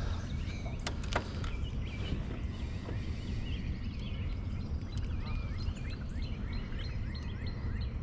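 Many small birds chirping and calling, with a steady low rumble underneath. Two sharp clicks come about a second in.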